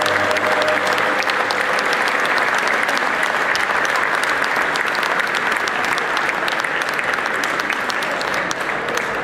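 Audience applauding with steady, dense clapping. The last held notes of the song fade out in the first couple of seconds.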